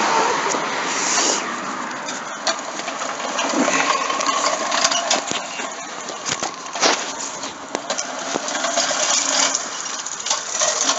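Old-fashioned manual push reel lawnmower being pushed, giving a continuous clattering rattle broken by scattered sharp clicks and knocks.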